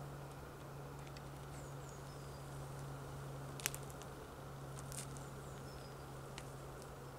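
Water dripping from icicles on a rock face: a few sharp single drips, the loudest about halfway through, over a faint steady hiss and low hum. Twice a faint, high, falling chirp, like a small bird calling.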